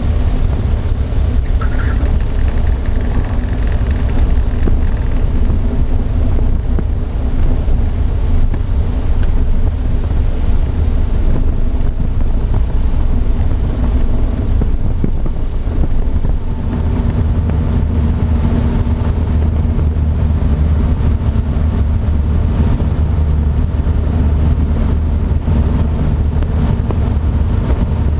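Ercoupe light aircraft's piston engine and propeller running at full takeoff power, a loud steady drone heard from inside the cockpit, with its tone shifting a little just past the halfway point as the plane accelerates and climbs away.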